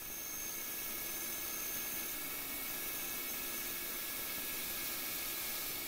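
Small CNC lathe turning an aluminium velocity stack with a carbide tool: a steady, even hiss with faint steady whines from the running machine. The cut is smooth, with no chatter at 0.05 mm per revolution feed.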